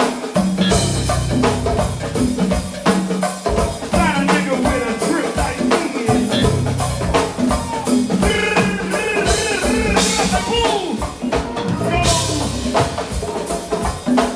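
Live band music with a steady drum-kit beat, percussion and bass, and a voice singing over it, loudest around the middle.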